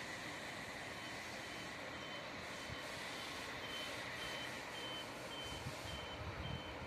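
A vehicle's reversing alarm beeping steadily a little under twice a second, growing louder in the second half, over steady background noise.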